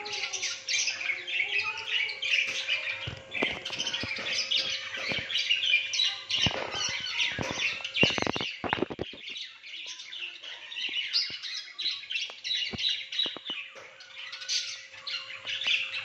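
Caged budgerigars and cockatiels chirping and squawking without a break, in dense high chatter. A run of knocks and rattles comes from about three to nine seconds in, and a faint steady hum lies under the birds before and after it.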